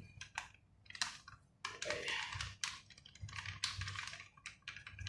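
Plastic sachet of coconut milk powder crinkling and crackling in the hands as the powder is shaken out into a bowl: an irregular run of short crackles and rustles.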